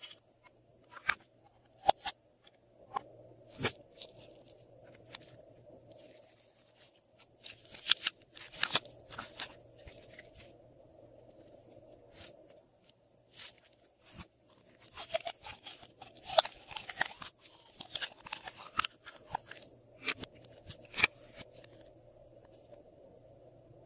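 Glossy slime being squished and worked by hand, giving sharp sticky clicks and bursts of crackling pops, busiest about eight seconds in and again from about fifteen to nineteen seconds.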